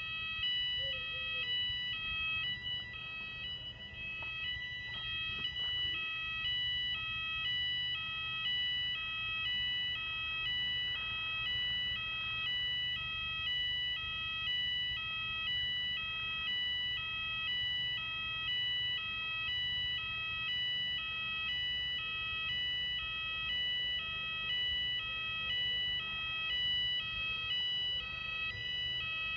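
Weatherproof Fulleon Symphoni sounder-beacons on a Fulleon/Cooper addressable fire alarm system sounding a continuous alternating two-tone alarm, one high-low cycle about every second, during a routine weekly alarm test.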